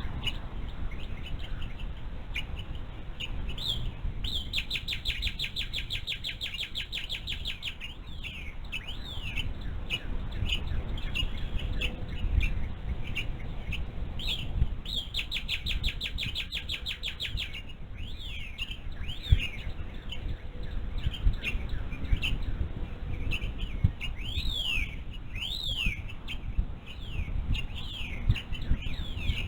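Forest birds singing: two long, rapid trills of evenly spaced high notes, one about four seconds in and one about midway, and scattered down-slurred whistled notes, over a steady low rumble.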